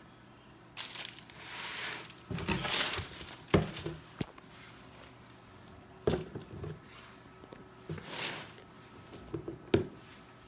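Packaging wrap crinkling and rustling in bursts as it is handled, with a few sharp knocks and taps in between.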